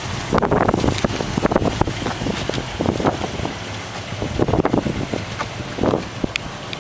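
The truck's Cadillac 500 cubic-inch V8 running at a steady idle, with wind gusting on the microphone.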